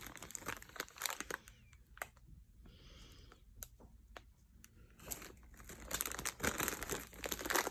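Small plastic baggies of diamond painting drills crinkling as they are handled, in irregular crackles with a quieter lull in the middle.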